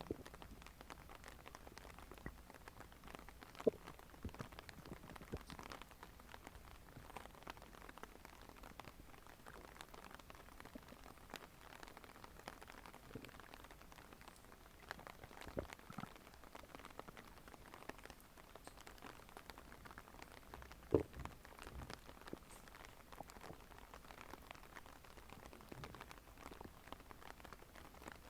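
Faint stomach gurgling: scattered small bubbly pops over a low steady hiss, with two sharper pops, one a few seconds in and one about two-thirds of the way through.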